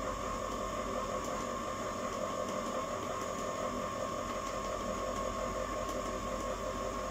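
Ice cream machine running with a steady mechanical hum.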